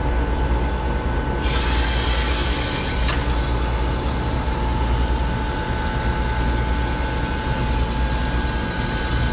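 Water starting to rush through a cooling-tower water line as its valve is opened after a pipe repair: a hiss that comes in about a second and a half in and holds steady. Underneath it runs the steady low rumble and hum of plant-room machinery.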